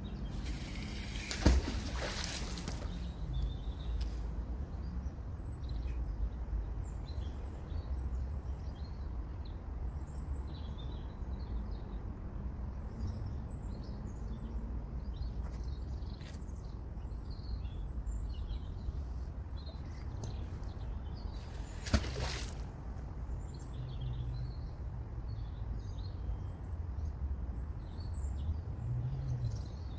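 A fishing magnet splashing into canal water about a second and a half in, and again about two-thirds of the way through. Birds chirp throughout over a steady low outdoor rumble.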